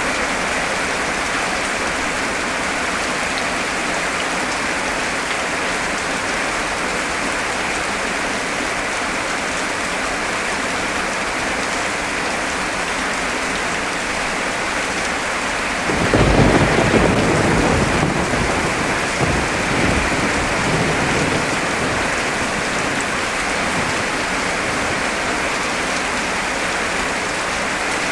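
Heavy rain falling steadily. A little past halfway a clap of thunder breaks in and rumbles low for a few seconds, with a second swell, before fading back under the rain.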